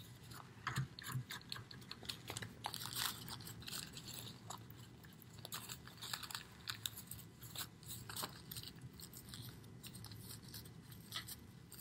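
Paper towel crinkling and rustling as a wet paintbrush is wiped and squeezed inside it, a quiet run of irregular soft crackles.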